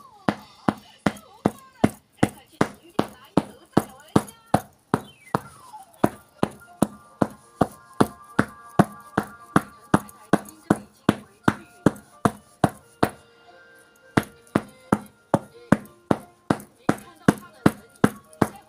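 Steady rhythmic back-patting, about two to three firm slaps a second on a person's back, pausing briefly about two-thirds through: percussion to loosen phlegm that cannot be coughed up.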